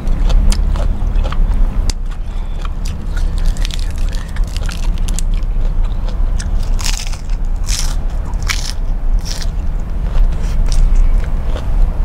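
Close-miked chewing and biting of crisp raw lettuce, a run of wet crunches and clicks. The loudest crunches come about seven to nine and a half seconds in, over a low steady hum.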